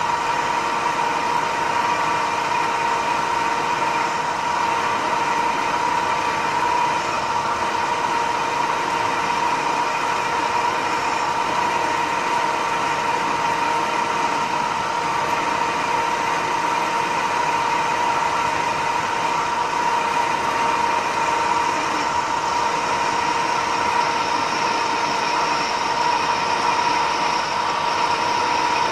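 Metal lathe running with a steady whine, its chuck spinning a metal bar as the tool turns it down to a smaller diameter in a step.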